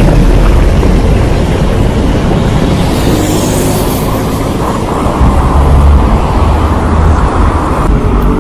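Heavy street traffic, with city buses passing close by. Their diesel engines give a deep rumble that swells about five seconds in.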